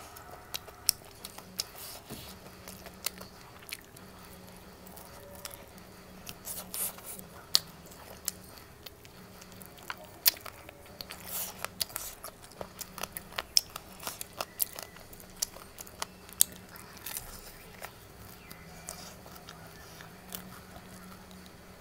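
A person chewing and biting food close to the microphone, with many short sharp clicks and taps scattered throughout.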